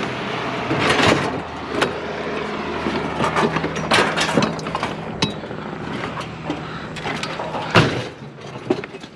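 Scrap metal being pulled and tossed off a trailer by hand: a run of irregular clanks, knocks and scraping, with the loudest bang about eight seconds in. A low steady hum runs underneath.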